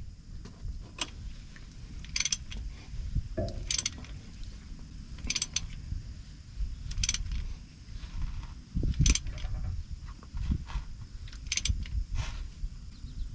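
3/8-inch-drive ratchet wrench clicking in short bursts every couple of seconds as it tightens the fill plug in a rear differential housing.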